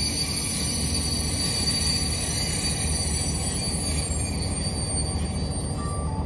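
A train running on the rails with a steady rumble and a high, steady squeal from its wheels.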